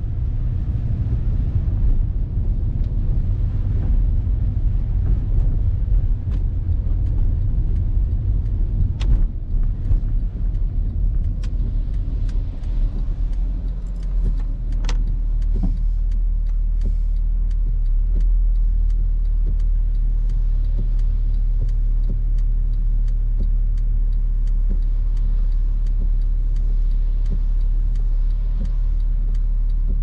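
Road noise inside a car driving on a rain-soaked road: a steady low rumble of engine and wet tyres, with scattered short clicks from rain and the windscreen wipers.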